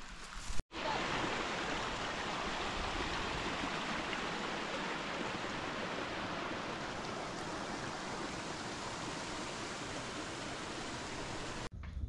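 Freshwater stream flowing, a steady even wash of running water that cuts in sharply just under a second in and cuts off near the end.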